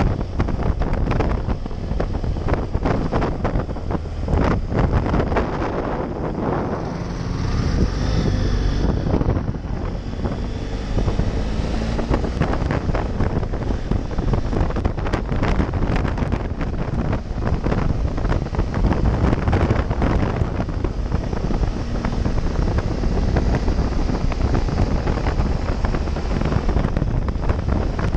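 Wind buffeting hard on the microphone of a camera on a motorcycle riding at road speed, with the bike's engine running underneath. The noise is steady and loud, with constant gusty fluttering.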